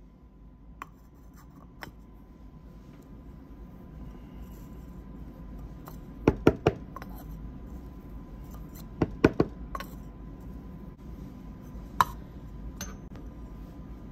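Metal parts of a Flair Pro 2 manual espresso press clinking and knocking as they are handled and fitted together: three quick sharp clinks about six seconds in, three more about nine seconds in, and a single one near twelve seconds.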